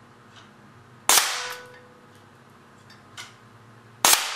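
Two sharp shots from a homemade .177 BB air cannon, its quarter-inch solenoid valve dumping compressed air, about three seconds apart; the first is followed by a brief metallic ring.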